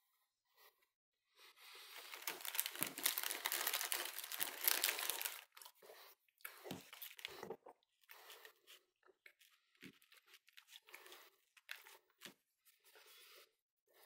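Food packaging crinkling and tearing for about four seconds, then scattered light clicks and taps of cutlery and crackers being handled on a plate.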